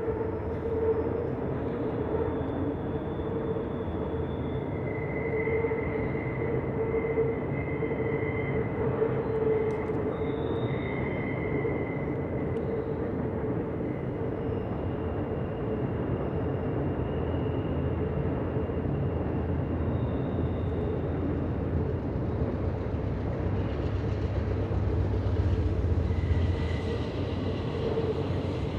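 CP Rail intermodal container train rolling past: steady rumble of wheels on rail, with a high ringing tone over it, louder and deeper near the end.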